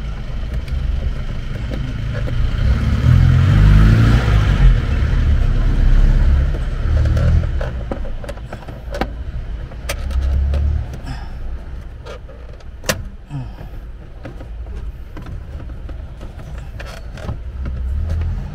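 Plastic centre-console trim around the shifter of a Honda City GM6 being tugged and worked loose by hand. Low rumbling handling and knocking, loudest in the first half, gives way to several sharp clicks of the trim and its clips in the second half, the sharpest about two-thirds of the way through.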